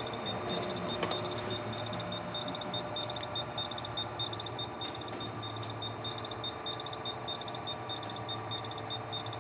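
Steady low machine hum with a rapid, high-pitched electronic beeping that pulses without a break, and a few faint clicks.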